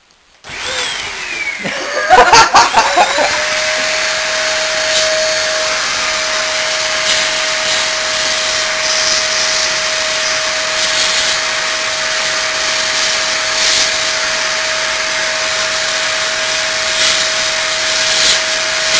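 Handheld hot-air blower switched on about half a second in and running steadily, a loud air rush with a steady whine, and a short burst of clattering just after it starts.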